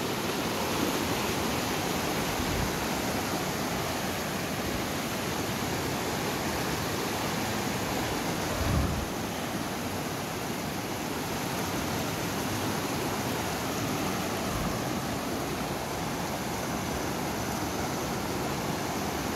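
Shallow mountain river rushing over boulders in rapids: a steady hiss of white water, with a brief low thump about nine seconds in.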